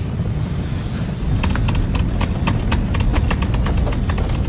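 A deep, steady rumble with a thin whine that rises slowly, like a rocket engine running. From about a second and a half in come quick footsteps of people running on a hard floor, about four or five steps a second.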